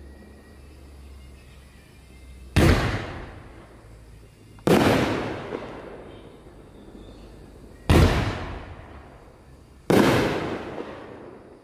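A 3-inch, 9-shot consumer fireworks cake firing: four loud bangs two to three seconds apart, each fading out over a second or so.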